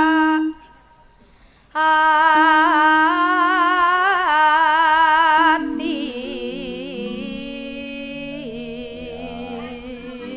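Young sinden (Javanese female gamelan singer) singing a held line with a wavering vibrato into a microphone, with a brief break about half a second in, the voice climbing in pitch before it stops near six seconds in. After that, a quieter line of steady held notes steps up and down in a lower register.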